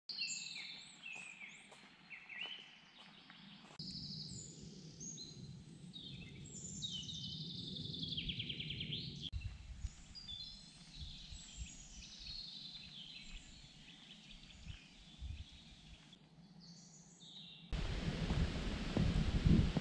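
Woodland birdsong: several birds chirping and trilling in short phrases. In the last two seconds loud wind noise rumbles on the microphone.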